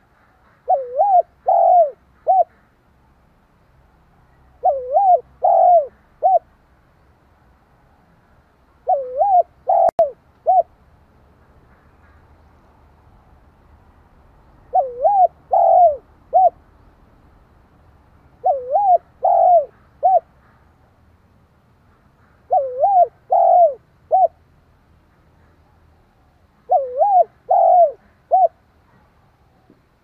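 Spotted dove cooing its fast, repeated song: seven phrases of three or four rising-and-falling coos, one about every four seconds, each ending on a short clipped note. A single sharp click comes about ten seconds in.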